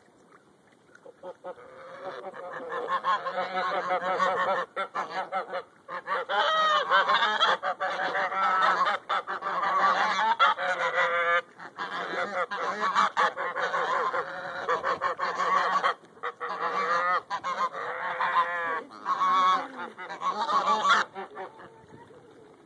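Greylag geese honking loudly in a near-continuous run of calls that starts about a second and a half in and stops shortly before the end.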